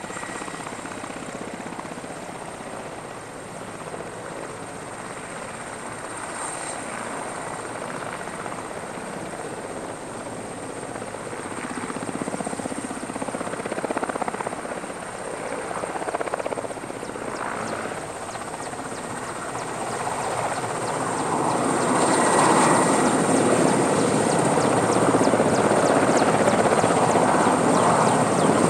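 Helicopter running, its rotor beat growing louder about two-thirds of the way through and staying loud.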